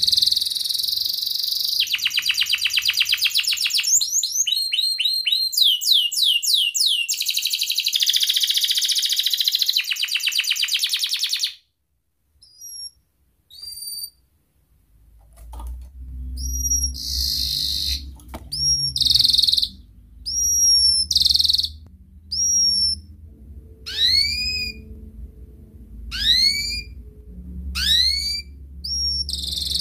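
Domestic canary singing: a long, fast run of trills and rolling phrases that breaks off abruptly about eleven seconds in. After a short pause come separate short chirps, some sweeping upward, about one a second over a low steady hum.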